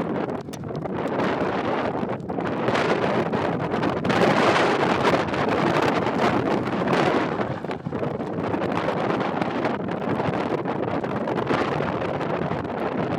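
Gusty wind buffeting the microphone, a rough rushing noise that swells and eases, loudest about four seconds in.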